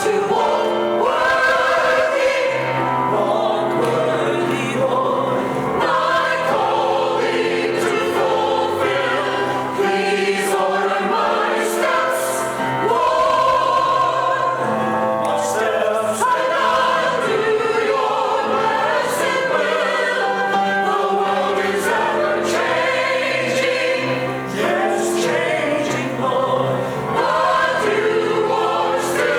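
A choir singing sacred music, with voices moving through changing held notes and a sustained low accompaniment underneath.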